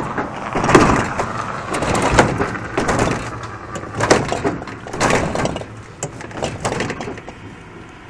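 Irregular knocks, bumps and scraping as a fridge is pushed and handled, with several sharp knocks.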